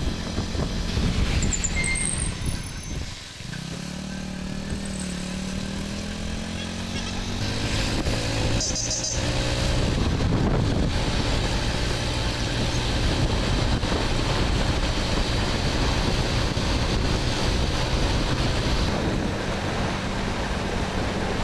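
Motorcycle engine running while riding at road speed, with wind rushing over the microphone. About three seconds in, the engine note and loudness drop briefly as the throttle eases, then build back up as the bike picks up speed.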